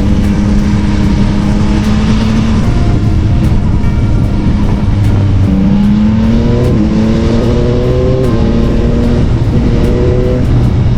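Yamaha XSR900's 890 cc inline-three engine running on the move. It holds a steady pitch, then rises in pitch as it accelerates about six and again about eight seconds in.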